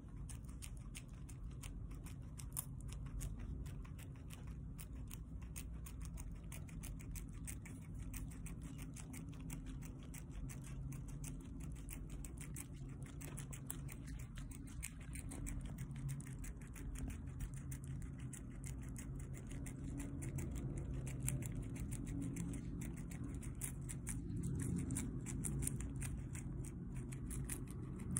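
A guinea pig quickly chewing its way up a stalk of fresh parsley: a fast, steady run of small crisp crunches over a low rumble.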